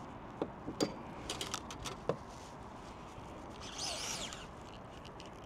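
Handling noise on a kayak as a caught bream is held and a measuring ruler is brought up beside it: a few light clicks and knocks over the first two seconds, then a brief high squeak about four seconds in.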